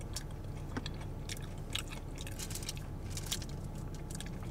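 Close-miked chewing of crunchy tater tots: irregular crisp crunches, several a second.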